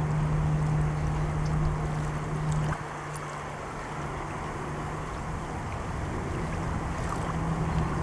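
A steady low motor hum over a noisy rush; the hum dips about three seconds in, then comes back.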